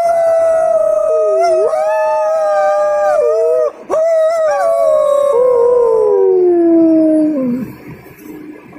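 A wolf-like husky-type dog howling: two long howls with a brief break between them. The first is held fairly level and the second slides down in pitch, fading out about three-quarters of the way through.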